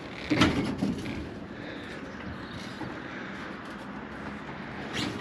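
A thump about half a second in and a lighter knock just before a second, then steady low background noise.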